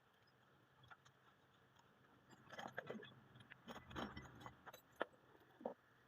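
Faint metallic clinking and rattling of small metal parts being handled. A cluster of quick clicks starts a little over two seconds in and thins out near the end.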